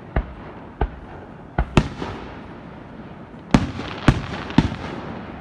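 Aerial fireworks shells bursting: seven sharp bangs at uneven intervals, two close together near the middle and three in quick succession near the end, each trailing off in a short echo.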